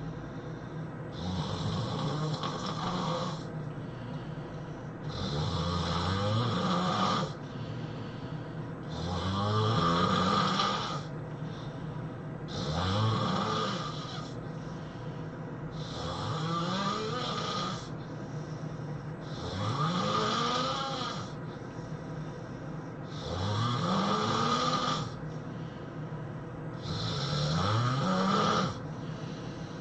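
A person snoring heavily in sleep, one snore every three to four seconds, each rising in pitch as it goes.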